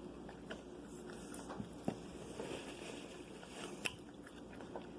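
A person chewing fried food close to the microphone: soft mouth sounds broken by a few sharp clicks, the sharpest about four seconds in.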